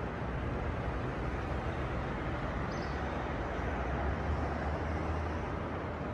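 Steady outdoor background noise: a low rumble under an even hiss, of the kind that distant traffic makes. A brief faint high chirp comes about three seconds in.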